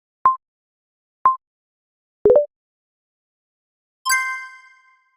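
Quiz countdown timer sound effects: short beeps at one pitch a second apart, twice, then a quick three-note rising blip about two seconds in, and a bright bell ding about four seconds in that rings out for about a second, marking the end of the countdown.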